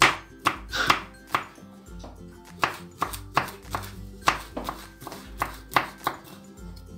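Chef's knife slicing garlic cloves on a wooden cutting board: an uneven run of sharp knocks as the blade hits the board, about two to three a second, over background music.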